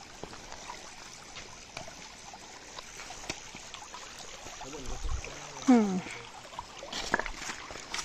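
Shallow forest stream trickling and running over rocks. About two-thirds of the way through, a voice gives one short call that falls in pitch.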